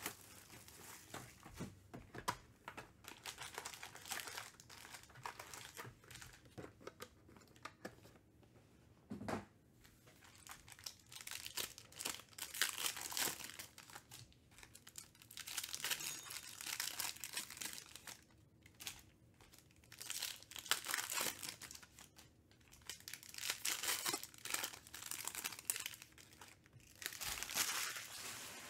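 Panini Chronicles baseball card pack wrappers torn open and crinkled by hand, in repeated bursts of rustling and crackling every few seconds.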